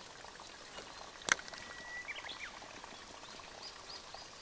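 Faint outdoor ambience with a bird calling: a short whistled note followed by a few quick rising chirps about two seconds in, and fainter chirps near the end. A single sharp click comes just over a second in.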